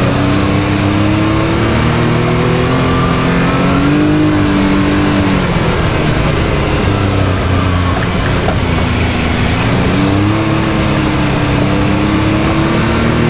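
Can-Am Maverick X3 side-by-side's turbocharged three-cylinder engine running under throttle over rough trail, with a steady rumble and ride noise. Its pitch climbs over the first few seconds, drops about five seconds in, and climbs again near the end.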